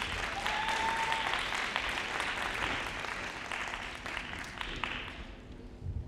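Audience applauding as the gymnast is introduced, with a brief high tone about half a second in; the clapping fades out about five seconds in.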